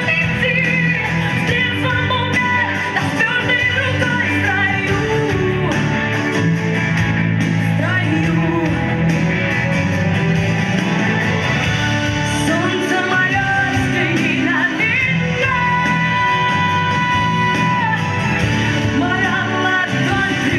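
A song with a band backing track and a sung melody, including one long held note near the end.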